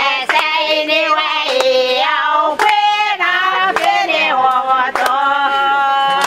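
A group of voices singing together in high voices, with a sharp clap or slap about once a second.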